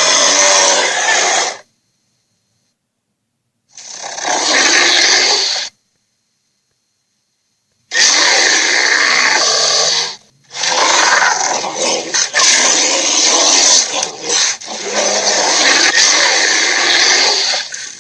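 Giant-creature sound effects: harsh, noisy monster growls and roars in separate takes. One take ends about a second and a half in, a second runs from about 4 to 6 s, and from about 8 s on they come almost without a break, with a short gap near 10 s.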